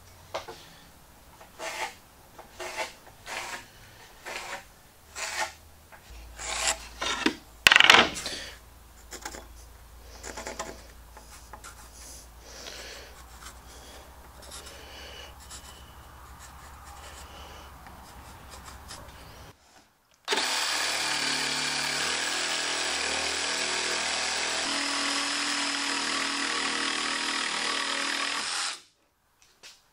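Cordless DeWalt 20V XR jigsaw cutting through a wooden board, running steadily for about eight seconds before it stops abruptly. Before it comes a run of short scratching and tapping strokes, the loudest about eight seconds in.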